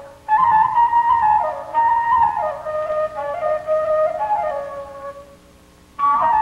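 Music: a solo flute playing a melody in short phrases of stepping notes, breaking off for under a second near the end before a new phrase starts.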